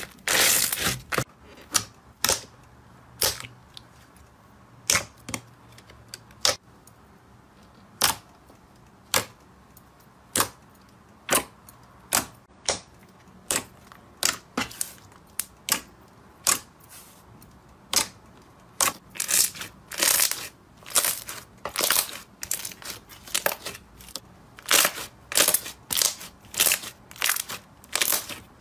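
Slime being pressed and squeezed by hand, giving off sharp wet clicks and pops as trapped air bursts out. The pops come irregularly, about one a second at first, then several a second, louder and closer together, in the last ten seconds.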